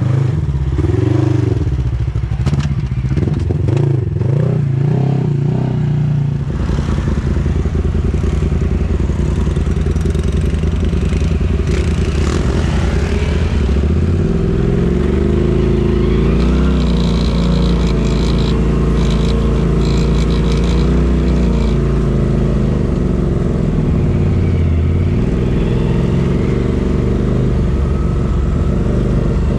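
Side-by-side UTV engine noise. For the first few seconds an engine revs up and down with some clatter. After that an engine runs steadily from inside the cab, its pitch slowly rising and falling with the throttle.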